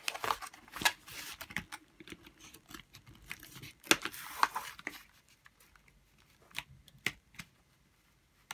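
Plastic and cardboard toy packaging crinkling and clicking as it is handled and cut, busiest in the first half, then only a few scattered snips and clicks from scissors cutting accessories free of the backing card.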